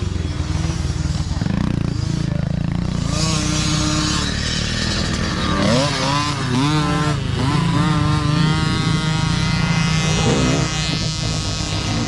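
Several mini dirt bike engines revving hard as the bikes ride past, the pitch climbing and dropping again and again with throttle and gear changes.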